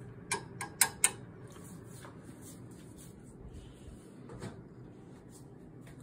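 Four quick sharp clinks with a brief metallic ring in the first second, from cooking utensils knocking against a frying pan, then a single duller knock a few seconds later, over low steady background noise.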